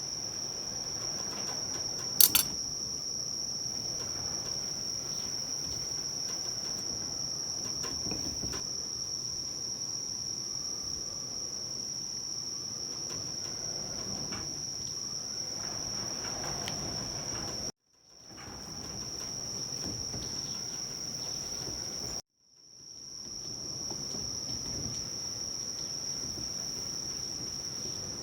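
A steady, high-pitched chorus of insects, with a sharp click about two seconds in. The chorus drops out twice, briefly, about two-thirds of the way through, and fades back in each time.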